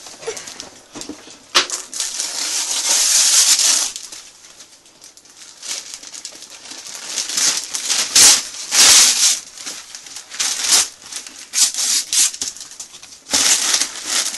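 Wrapping paper being torn and crumpled off a large gift box by a small child: one long rip about two seconds in, then a run of short rips and rustles through the second half.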